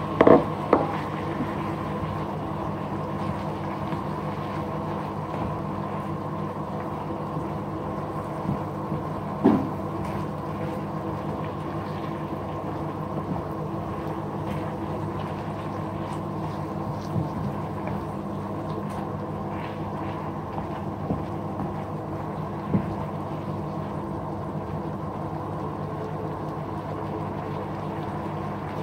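A wooden spatula stirring minced meat and sweet corn in a nonstick frying pan, knocking against the pan a few times (twice right at the start and once about ten seconds in), over a steady humming drone.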